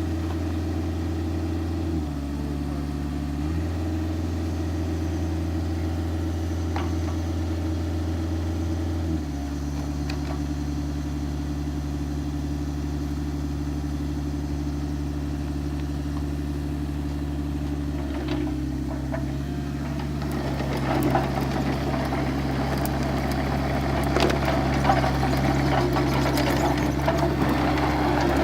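Excavator's diesel engine running steadily, its note stepping between speeds a few times; about two-thirds of the way through, scraping and clattering noise builds up over it.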